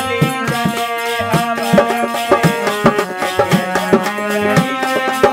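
Instrumental break in a dehati bhajan: a harmonium plays the melody over a dholak beating a steady rhythm.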